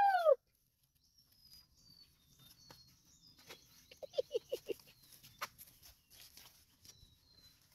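A short arching call at the very start. Then quiet open-air background with faint high bird chirps, a few light taps, and a quick run of about six short pitched calls about four seconds in.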